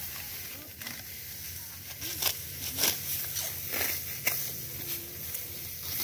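Hand sickles cutting through dry wheat stalks: a series of crisp crunching cuts at irregular intervals, with dry straw rustling as the stalks are gathered.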